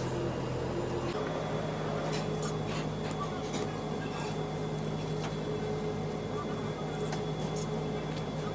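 A steady mechanical hum of kitchen machinery, with a few short sharp clicks and taps of a knife working on a plastic cutting board.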